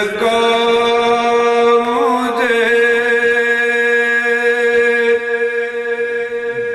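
A man's voice singing a naat, holding one long drawn-out note for several seconds, with a slight waver in pitch about two seconds in.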